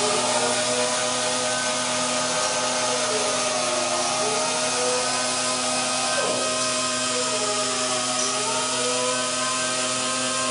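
Pneumatic random orbital sander running continuously under load in a life-test rig: a steady mechanical whine over a broad hiss, with fainter tones that slowly waver up and down.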